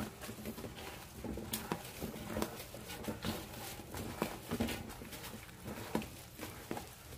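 Spatula folding chiffon cake batter by hand in a stainless steel bowl, knocking and scraping against the bowl's side in irregular taps, about one or two a second.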